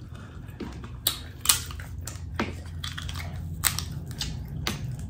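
Cooked lobster claw shell cracking and snapping as it is pulled apart by hand, in several sharp cracks about a second apart, the loudest early on.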